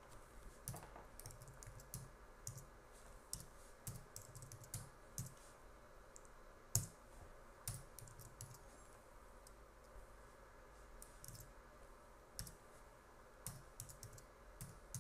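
Faint keystrokes on a computer keyboard as coordinates are typed in. The clicks come in irregular bunches, with a pause of about two seconds just past the middle and one louder keystroke about seven seconds in.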